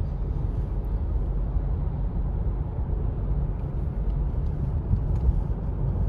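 Steady low rumble of a vehicle in motion, with no breaks or changes.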